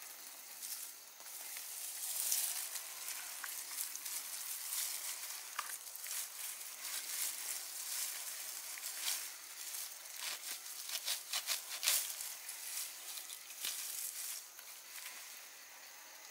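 Weeds being pulled and torn up by hand: stems and leaves rustling and crackling, with many small snaps and a dense run of snapping about ten to twelve seconds in.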